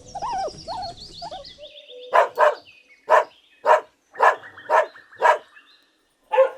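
Guinea pig squeaking: warbling, wavering squeaks in the first second or so, then a run of about eight short, sharp squeals, roughly two a second.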